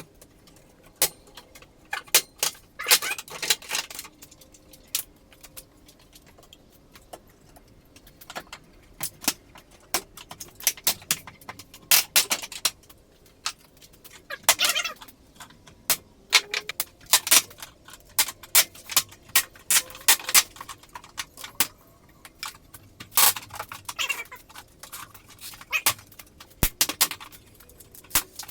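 Irregular metallic clinks, knocks and short jangling rattles, like hardware and tools being handled and fitted.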